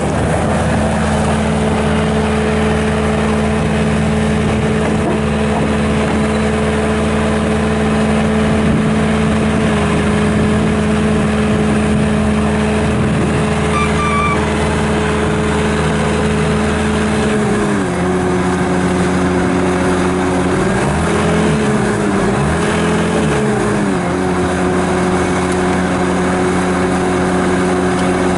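Bobcat S650 skid steer loader's Kubota diesel engine running steadily at a raised speed. About two-thirds of the way through it drops to a lower speed, then twice sags briefly and picks back up.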